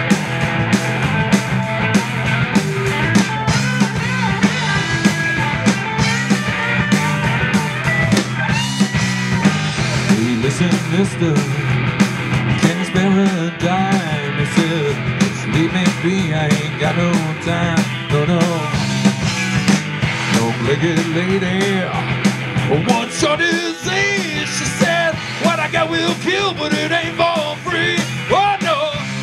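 Live rock band playing an instrumental jam on electric guitars, bass guitar and drums, with a lead line bending and wavering in pitch over a steady beat.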